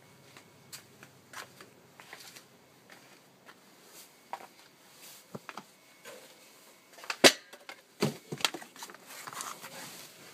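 Scattered knocks and clicks, with one sharp, loud bang about seven seconds in and a flurry of clattering knocks just after it.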